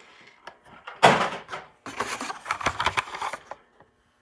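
Hot Wheels blister-pack cards being handled: plastic bubbles crinkling and card stock rustling, with a run of clicks and clacks. It is loudest about a second in and stops shortly before the end.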